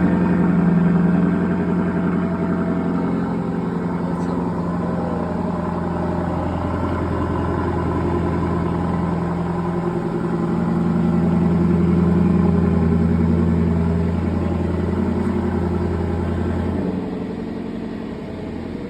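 Lexus LC500's 5.0-litre V8 at a cold-start fast idle just after firing up, running steadily. It swells slightly about twelve seconds in, and about seventeen seconds in it drops and settles to a lower, quieter idle.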